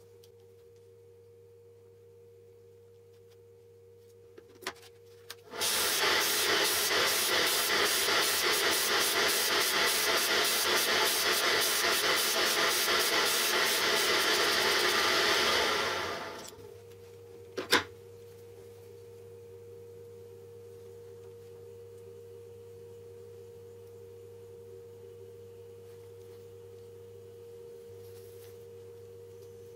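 Electric disc sander running with a steady hum. About five seconds in, a steel drill bit is pressed against the spinning sanding disc and ground for about ten seconds, a loud rasping hiss, sharpening its tip; then the sander runs on alone, with one sharp click shortly after.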